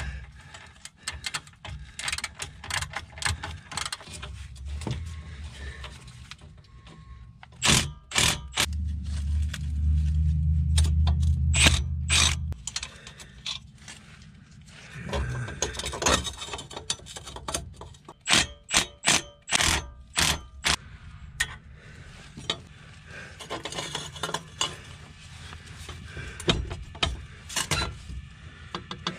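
Ratchet wrench clicking in short runs as the exhaust X-pipe flange bolts are loosened. A loud low rumble lasts a few seconds, about a third of the way in.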